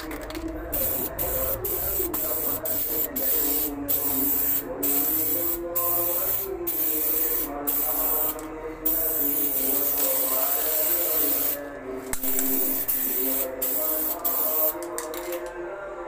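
Aerosol can of film activator hissing in long sprays broken by short pauses, sprayed over carbon-fibre water-transfer film floating on water. This is the activation step that softens the film's ink for dipping.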